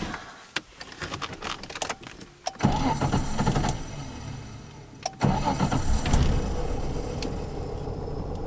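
A Nissan Skyline R31's engine is started twice. After a few clicks and knocks, a first start about two and a half seconds in fades away. A second start about five seconds in catches and settles into a steady idle.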